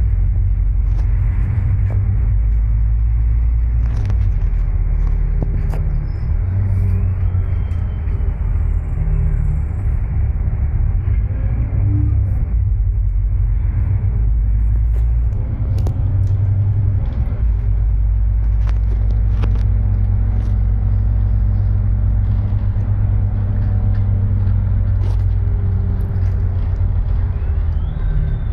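Double-decker bus heard from the upper deck while driving: a steady low engine and road rumble with a few faint clicks and rattles. The rumble eases off briefly about halfway through and then builds again.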